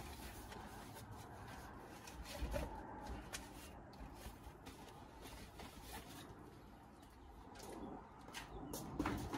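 Faint pigeon cooing over low outdoor background noise, with scattered light knocks and clatters of items being handled and moved.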